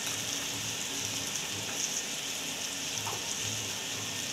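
Onion and tomato masala sizzling steadily in hot oil in a kadhai, with a few faint ticks.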